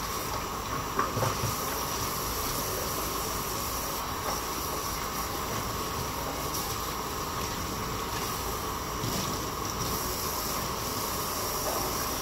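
Steady hiss from a pot of soup heating on the stove, with a few light knocks about a second in.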